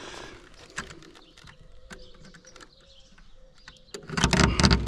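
Light clicks and handling sounds, then about four seconds in a cordless reciprocating saw starts up loud, its blade cutting into a corrugated steel roof panel.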